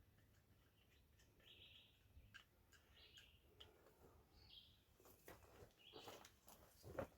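Near silence, with faint bird chirps now and then and a few faint clicks and knocks in the last couple of seconds.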